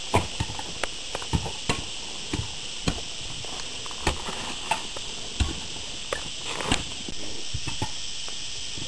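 Steady high-pitched insect buzzing in summer heat, over irregular sharp clicks and knocks.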